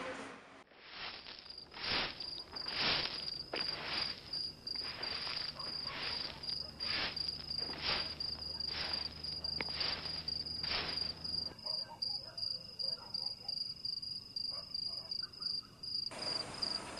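Crickets chirping in a steady, pulsing trill. Over roughly the first eleven seconds a series of soft strokes comes about once a second, over a low hum; both stop together.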